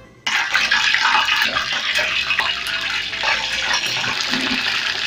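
Yellow-coloured potatoes going into hot oil in a steel pan: the oil starts sizzling suddenly and keeps up a steady, loud sizzle as they deep-fry.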